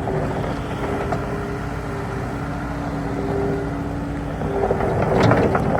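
New Holland L230 skid steer loader's diesel engine running steadily, with a few sharp knocks near the end.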